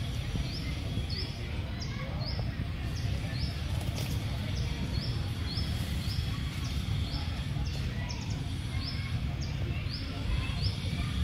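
Outdoor ambience: a short, high chirp repeats about twice a second, evenly spaced, over a steady low rumble.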